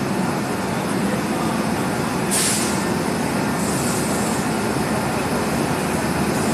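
WAP-7 electric locomotive standing at the platform with its machinery running in a steady drone. A short burst of air hiss comes about two seconds in, and a fainter hiss follows about a second later.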